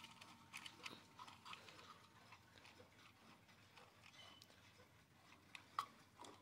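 Faint ticking of a small quartz alarm clock's second hand, mixed with soft clicks from fingers handling its plastic case; one sharper click near the end.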